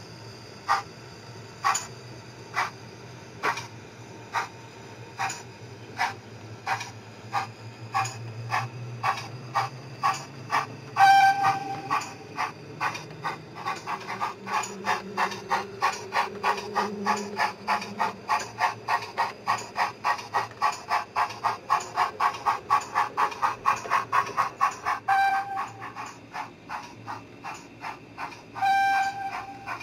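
Steam exhaust chuffs from the DCC sound decoder of an O gauge model steam locomotive. They are slow at first, about one a second, quicken to about four a second as the loco picks up speed, then slow again. Three brief steady tones break in, the first about a third of the way in and the last near the end.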